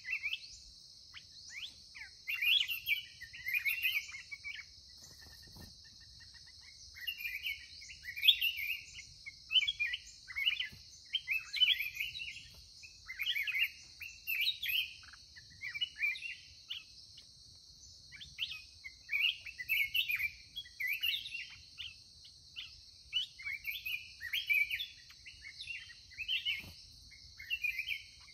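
Black-crested bulbuls singing short, bubbling warbled phrases over and over, about one every second or two, with a few seconds' pause near the start. A steady high hiss runs behind the song.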